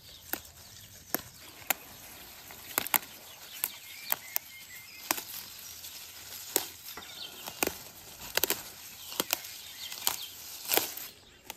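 Houttuynia cordata (fish mint) stems snapping and leaves rustling as the tender leaves are picked by hand: short, sharp snaps at an irregular pace, roughly one or two a second, a few in quick clusters.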